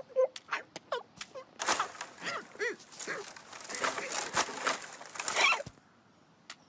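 Cartoon foley of a bird character rummaging head-first through a leafy bush. A few short clicks and pops come first, then about four seconds of dense leaf rustling mixed with short squeaky grunts from the bird. It cuts off suddenly about a second before the end.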